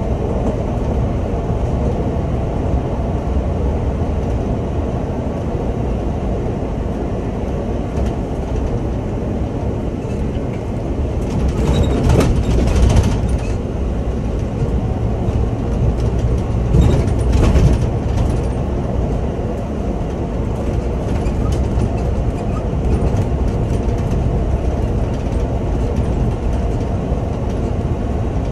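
Scania Omnilink city bus driving, heard from the driver's cab: a steady engine and tyre rumble, with two louder, noisier spells about twelve and seventeen seconds in.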